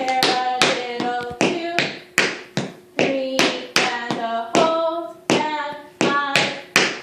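Tap shoes striking a hard floor in a steady rhythm, about three taps a second, with a voice calling or singing the counts between them.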